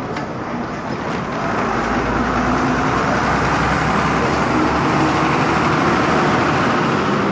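Steady road traffic noise from passing motor vehicles, growing slightly louder about a second and a half in.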